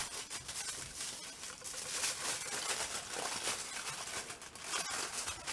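Aluminium foil crinkling continuously as hands fold and press it around a sandwich.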